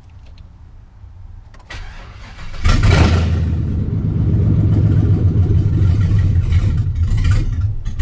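A GM 8.1-litre gasoline V8 starting about two and a half seconds in, flaring briefly as it catches, then running steadily and loudly with no exhaust pipes fitted past the manifolds.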